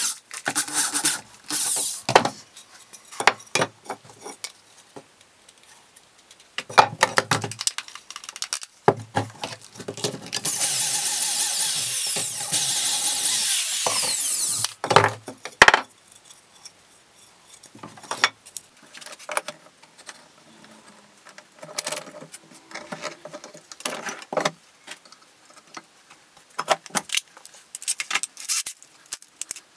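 Cordless drill boring pocket holes in wooden boards through a clamped pocket-hole jig: short bursts, then one long steady run of drilling about ten seconds in. Between the runs come clicks and knocks of clamps and boards being handled.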